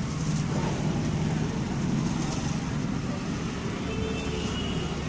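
Steady road traffic noise from cars and motorbikes passing on the street.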